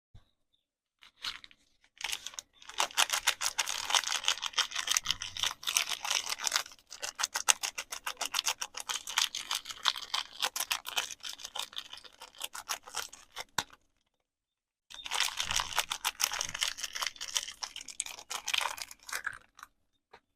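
Soap packaging being crinkled and unwrapped by hand: dense, rapid crackling of the wrapper. It comes in two long spells, with a pause of about a second between them.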